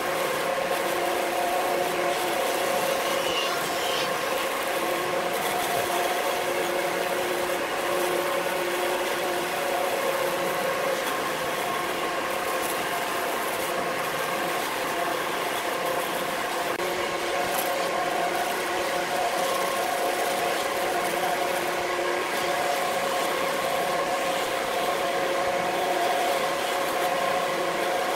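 Variable-speed wood lathe running, its motor and spindle giving a steady mechanical whine with a few held tones as it spins a large wooden turning.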